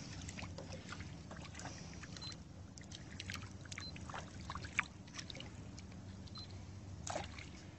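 Faint water trickling and lapping around a small boat, over a steady low hum, with scattered small clicks.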